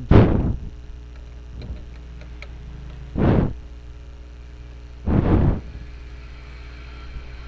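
Plastic parts of an inkjet printer being handled and pried as the print head is worked loose: three short scraping, rattling bursts, one at the start, one about three seconds in and one about five seconds in, over a steady low hum.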